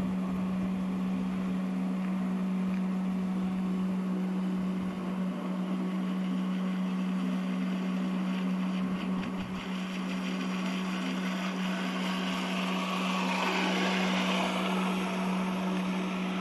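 Electric motor of a model boat running at a steady cruise throttle on a 3S battery, drawing roughly 30 to 35 amps. It makes a constant low hum over a hiss of water and wind, and the hiss swells briefly a little after halfway.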